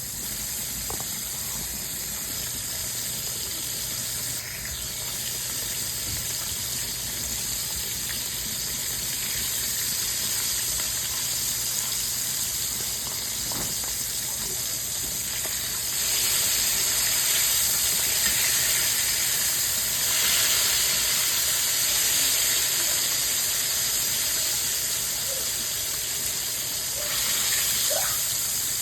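Food frying in hot grease in a pan: a steady sizzle that gets louder about sixteen seconds in.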